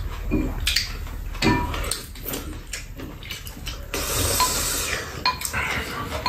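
Spoons clinking and scraping against bowls during a meal, with scattered sharp clicks and a second-long hiss of noise about four seconds in.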